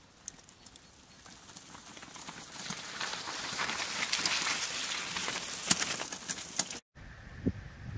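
Tyres of a loaded mountain bike rolling over a wet, muddy, stony track, with scattered clicks and crackles, growing louder as the bike comes past close by. The sound cuts off abruptly about a second before the end.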